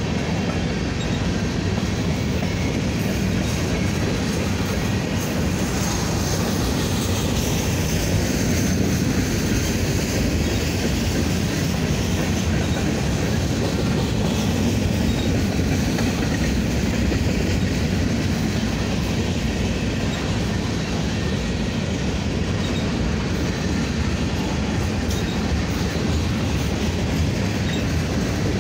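Covered hopper cars of a slow freight train rolling past, a steady rumble of steel wheels on the rails. A faint high wheel squeal comes in about a quarter of the way through.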